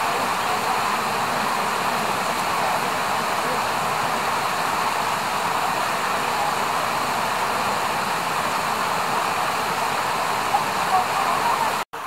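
Steady rush of a mountain river flowing over rocks, cutting out for an instant near the end.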